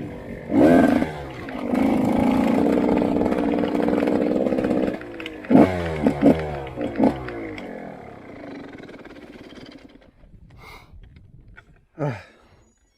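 Motorcycle engine heard on board: a quick throttle blip, then steady high revs for about three seconds, then several sharp throttle blips as it slows and the sound fades away. One more short blip with falling pitch comes near the end.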